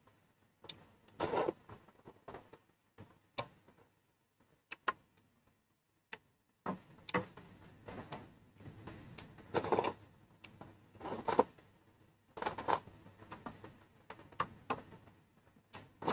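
Close-up eating sounds from a bowl of bún riêu crab noodle soup: irregular bursts of slurping and chewing every second or so, with small sharp clicks between them and a short quiet gap about five seconds in.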